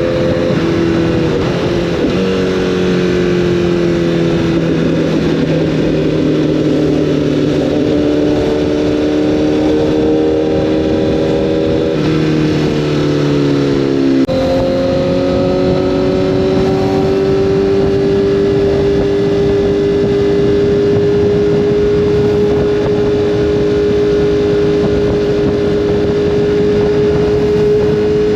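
Honda CBR1000RR inline-four engine running under way at steady revs over a constant rush of noise. Its pitch shifts a few times, sinks for a couple of seconds about twelve seconds in, jumps up at about fourteen seconds, then climbs slowly.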